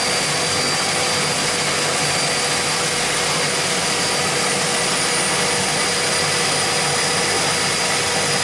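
Aircraft engines running steadily in flight: a loud, constant drone with a few steady whining tones over it.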